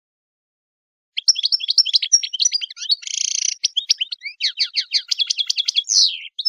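Small songbird singing a fast, varied song of high chirps and trills, starting after about a second of silence, with a short buzzy note about three seconds in and a quick run of downward-sweeping notes near the end.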